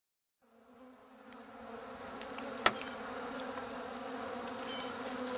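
Honeybees buzzing in a steady hum that fades in after a moment of silence. A single sharp click cuts through about two and a half seconds in.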